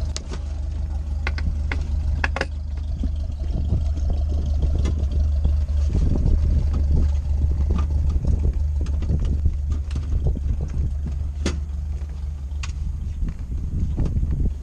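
A steady low rumble with scattered clicks, knocks and rustles of someone handling gear and fittings inside a parked helicopter cockpit.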